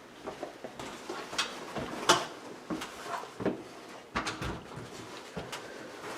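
Irregular clicks and knocks of a smoke detector's cover plate being handled and taken off its ceiling mount, with the sharpest knocks about two seconds in and again a little past the middle.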